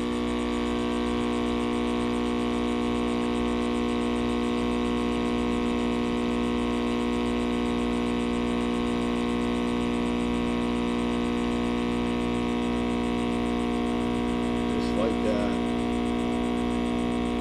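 Countertop vacuum sealer's pump motor running with a steady, unchanging hum, drawing the air out of a clear plastic bag holding a rigged bait before the heat seal.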